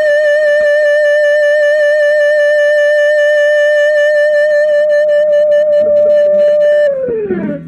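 Electric guitar played through a 1964 Marshall JTM45 2x12 combo with KT66 power tubes, holding one long sustained note that slides down in pitch near the end and then stops.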